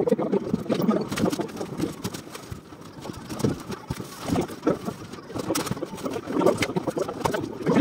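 Indistinct, murmured voices of workers, with scattered knocks and clatter of wooden ceiling slats being lifted and fitted into a suspended ceiling frame.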